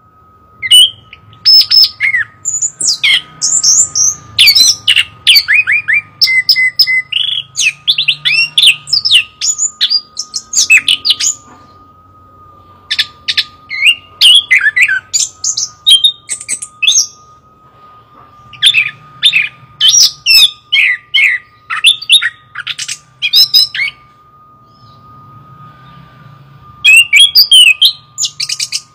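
Chestnut-capped thrush singing loudly: rapid runs of varied, high whistled and trilled phrases, broken by a few seconds' pause near the end.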